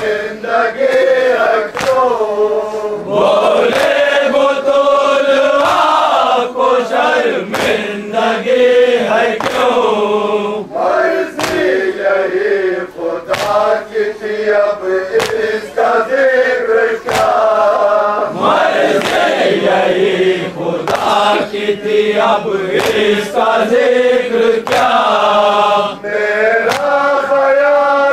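A group of men chanting a nauha, an Urdu mourning lament, in long unison phrases behind a lead reciter. Sharp hand slaps of chest-beating (matam) mark the beat every second or two.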